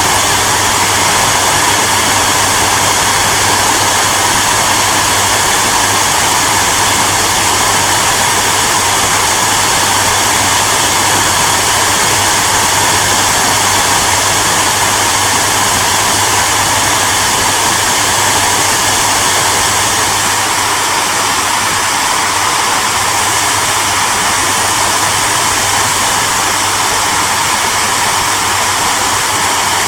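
Hair dryer running steadily: an even rush of blown air over a low motor hum.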